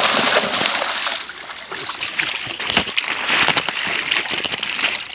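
Pond water splashing and sloshing as a koi pond is netted: a dense rush of splashing for about the first second, then thinner sloshing with scattered sharp splashes.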